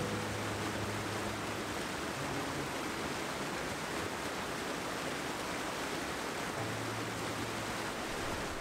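Mountain stream rushing steadily over rocks, a constant even wash of water noise.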